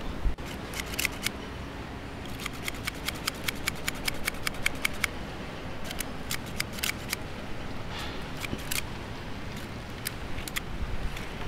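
Quick, small plastic clicks from a Minion PEZ candy dispenser being handled and its spring-loaded stem pulled open. There is a run of about five clicks a second for a couple of seconds, then a few shorter clusters.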